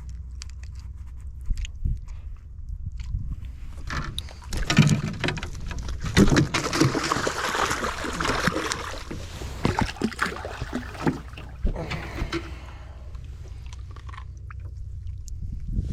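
Water splashing and knocking around a small boat, busiest in the middle, over a steady low rumble.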